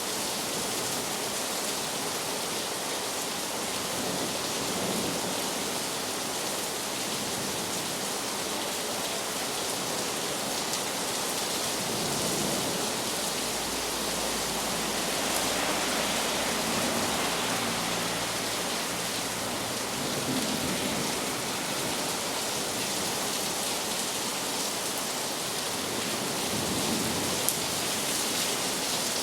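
Heavy rain falling steadily in an even hiss, with a low distant rumble of thunder rolling in about twelve seconds in and fading out some eight seconds later. A single sharp tick sounds near the end.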